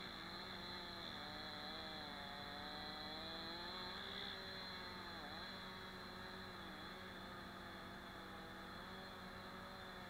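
Faint two-stroke chainsaw running steadily at high revs, its pitch wavering and dropping briefly about five seconds in and again near seven seconds as it takes load in a cut.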